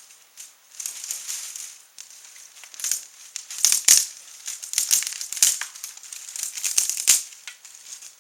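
Kindling fire of dry grass and small twigs crackling, with a run of sharp pops and snaps between about three and seven seconds in.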